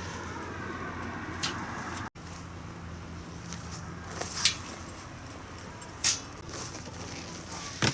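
A few sharp clicks and knocks of camping gear being handled, over a steady low hum and hiss; the sound breaks off for an instant about two seconds in.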